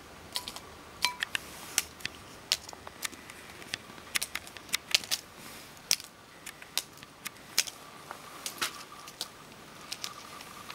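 A small plastic cat toy on a string tapping and clicking on concrete, in many sharp, irregular taps.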